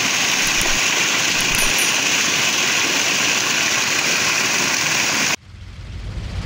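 Water gushing steadily out of a borewell's outlet pipe and splashing onto the ground. It cuts off suddenly near the end, and a low whoosh swells in its place.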